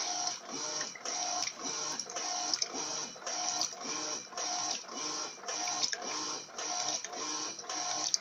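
Electrolux LF80 top-load washing machine agitating a load of sheets in a high level of water, in turbo mode. Its agitator swings back and forth in a steady, even rhythm of about three strokes every two seconds, with a motor whine in each stroke.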